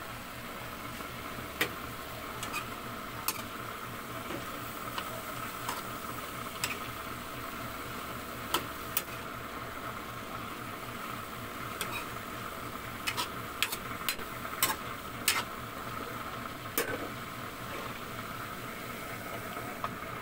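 Chayote and chicken simmering in a metal pan, a steady hiss, with a metal ladle clinking and scraping against the pan in short sharp knocks as the vegetables are stirred.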